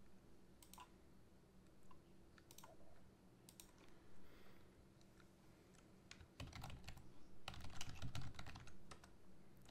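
Faint typing on a computer keyboard: a few scattered keystrokes, then a quicker run of typing in the second half.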